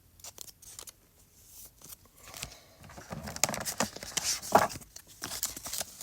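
Pokémon trading cards and their foil booster-pack wrappers being handled: crinkling, rustling and small clicks. It is quiet at first and gets busier and louder about halfway through.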